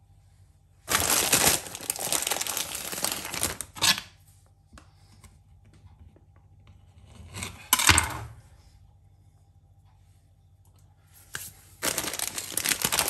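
Plastic sweet packet crinkling and rustling in bursts as it is rummaged through: a long stretch about a second in, a short burst midway, and another starting near the end.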